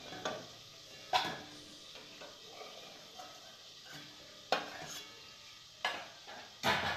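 Metal spatula scraping and knocking against a steel kadai while lifting out fried fish, over the steady sizzle of hot mustard oil. Five sharp clatters, the longest and loudest near the end.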